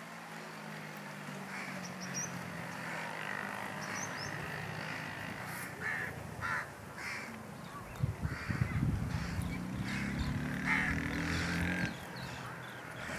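Birds giving a series of short, harsh calls about six to eleven seconds in, over a low steady hum.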